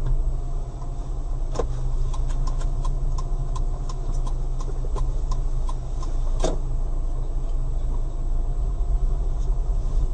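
Low engine and road rumble inside a moving car's cabin. From about a second and a half in to about seven seconds there is a light, regular ticking about three times a second, with two louder clicks among it.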